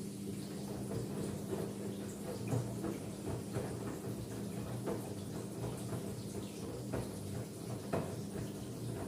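LG F10B8MD front-loading washing machine at the start of its final spin: a steady low hum with water running through, and irregular soft knocks from the drum and wet laundry.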